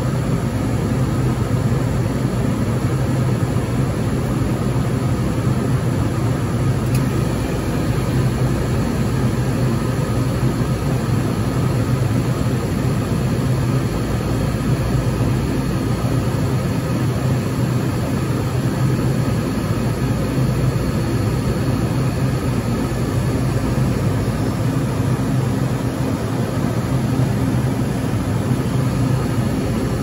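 Refrigeration condensing unit of a reach-in cooler running while cooling: the compressor and condenser fan make a steady, unbroken low hum with an airy rush over it.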